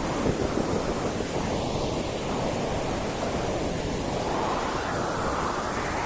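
Steady white noise for settling a crying baby, made to resemble the sound heard in the womb; its hiss slowly swells and ebbs every few seconds like surf.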